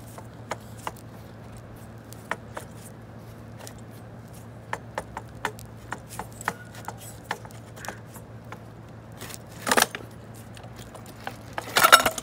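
Light clicks and taps of hands handling black metal ladder parts, with a short scrape about ten seconds in and a louder clatter near the end.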